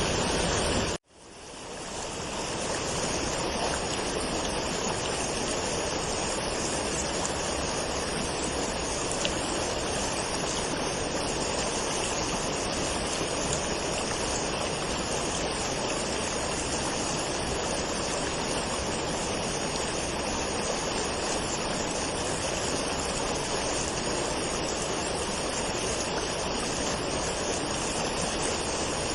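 Waterfall water rushing steadily. About a second in, it cuts out abruptly and fades back in over a second or two, like a loop splice.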